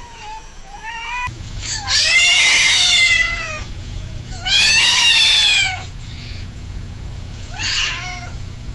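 Cat screaming: faint short yowls at first, then two loud, harsh screams about a second and a half long each, and a shorter scream near the end.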